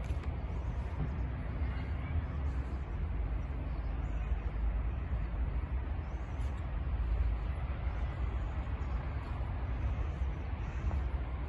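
Outdoor ambience recorded on foot: a steady low rumble with a haze of faint, indistinct voices of people nearby.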